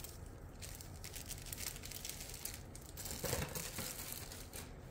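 Clear plastic kit packaging crinkling as it is handled, in a run of irregular crackles that is loudest about three and a half seconds in.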